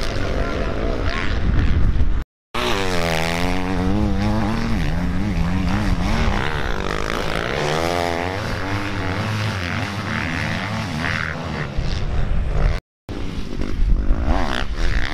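Motocross bike engines revving hard, their pitch repeatedly rising and falling with throttle and gear changes. The sound cuts out abruptly twice, about two seconds in and near the end.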